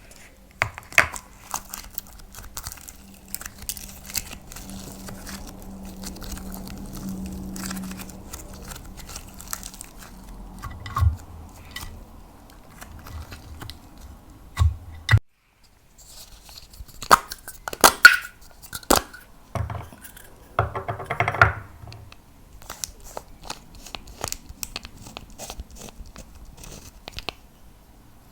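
Hands working slime and makeup: sticky crackling and popping with scattered sharp clicks and taps, the loudest cluster of snaps and pops in the second half, broken by a brief silence about halfway through.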